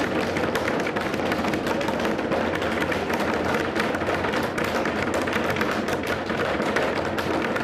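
Several children drumming fast all at once, a dense, uneven patter of taps that goes on without a break.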